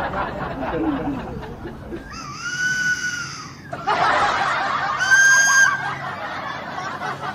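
Exaggerated fake snoring: a rasping snore, then a high, clear whistle, heard twice; the first whistle lasts about a second and a half, the second under a second.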